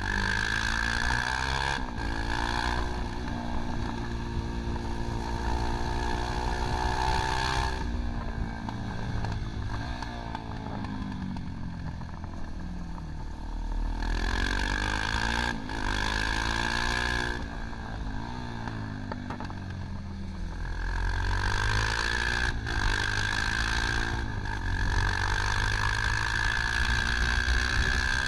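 Motorcycle engine heard from on board while it is ridden hard around a track, the revs climbing and dropping several times through shifts and corners. A rushing hiss comes and goes in stretches.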